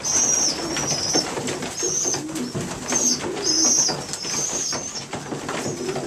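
Newly weaned racing pigeon squeakers, about four weeks old, giving short, thin, high squeaks again and again: the begging calls of young pigeons still learning to feed themselves. Lower pigeon cooing runs underneath, with scattered clicks.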